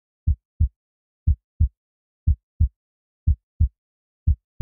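Heartbeat sound effect: low double thumps, lub-dub, about once a second with silence between.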